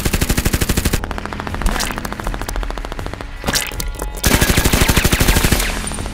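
Automatic machine-gun fire sound effect in rapid bursts, dubbed over a toy blaster. One loud burst opens, a softer stretch of fire follows, and another loud burst comes about four seconds in.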